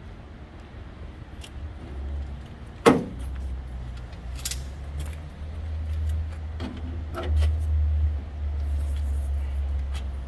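Metal clicks and clinks of a 1979 International Scout soft-top bow being snapped into its side bracket and pinned, with one sharp loud click about three seconds in and a few lighter clicks later, over a steady low rumble.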